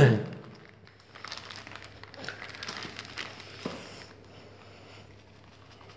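Paper packet of bone meal powder crinkling and rustling as it is tipped and shaken over a dog's food bowl, in a few scattered rustles.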